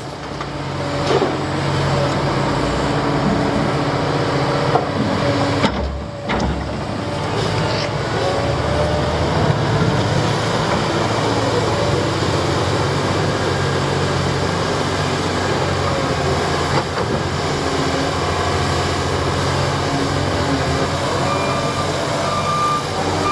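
Heavy diesel construction machinery, an excavator loading a dump truck, running steadily. Near the end a reversing alarm starts beeping at an even pace.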